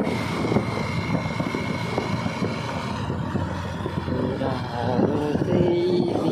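Bajaj Pulsar 220 motorcycle running on the move, its engine noise steady and even, with a thin high whine through the first three seconds.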